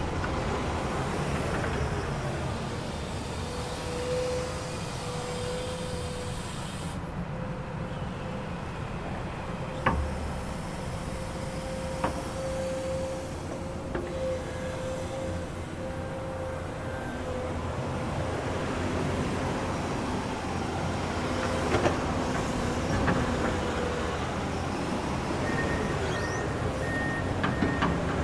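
Komatsu excavator running with a steady low rumble and a held mid-pitched whine, with a few sharp metallic knocks. A repeating high tone starts near the end.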